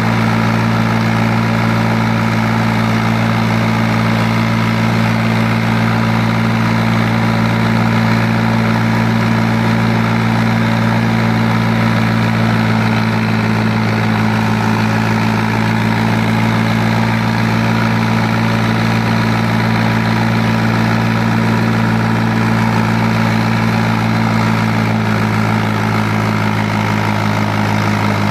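Fiat 500 Special tractor's diesel engine running at a steady, unchanging speed while driving, heard from the driver's seat right beside the upright exhaust pipe.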